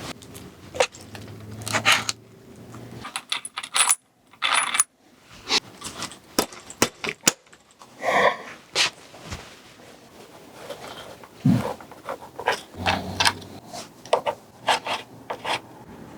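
Small metal parts and tools clicking, clinking and scraping at irregular intervals during fiddly hand work on a mountain bike.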